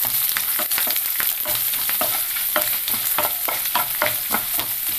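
Hot coconut oil sizzling in a nonstick frying pan while a spatula stirs coconut slivers, garlic, ginger and curry leaves, with quick repeated scraping strokes against the pan.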